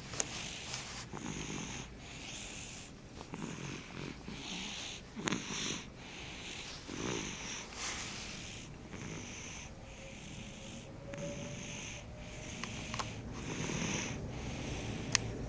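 Nine-month-old baby snoring in her sleep, a quick, regular rhythm of noisy breaths, about one a second. The snoring comes from nasal congestion while she is sick.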